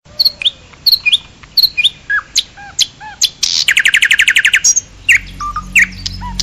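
Birds chirping: a string of short, sharp chirps repeating at a quick pace, with a fast, even trill in the middle.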